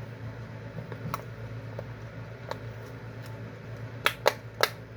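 Simple dimple fidget toy's buttons being pushed, clicking: a few faint clicks, then three sharp clicks in quick succession near the end, over the steady low hum of a fan.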